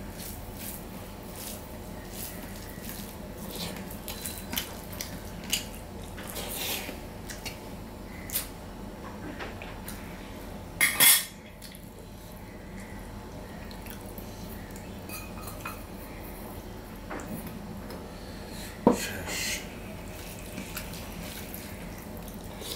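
Stainless-steel dishes: a hand mixing rice and lentil dal on a steel plate, with small scrapes and clicks. About halfway through, a loud double clink as the steel dal bowl knocks the plate while the dal is poured out, and another sharp clink near the end.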